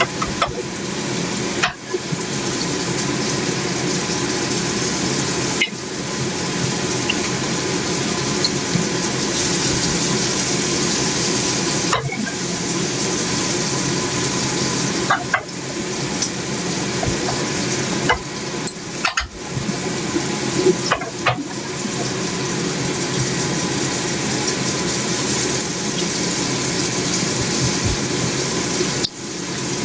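Food frying in a pan, a steady sizzling hiss, with light clicks of a utensil stirring now and then.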